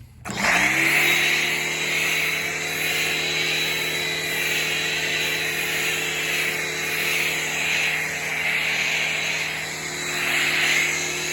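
Pressure washer starting up about a third of a second in: the motor spins up quickly to a steady whine, with the loud hiss of water and soap spraying through the foam cannon.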